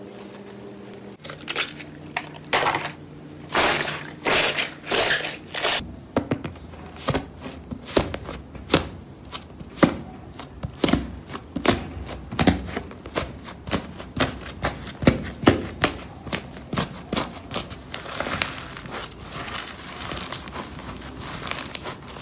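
Hands pressing, kneading and pulling slime, making sharp, irregular crackling pops a few times a second, thicker near the end. A steady low hum plays for about the first second, then cuts off.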